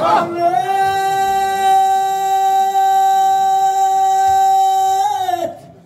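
A man singing one long, steady note into a microphone, a drawn-out vowel of mawlid chant held for about five seconds, with a short rise into the note at the start and a drop off it near the end.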